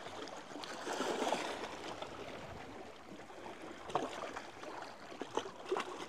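Small waves lapping and splashing against shoreline rocks: an irregular wash with scattered little splashes, swelling about a second in.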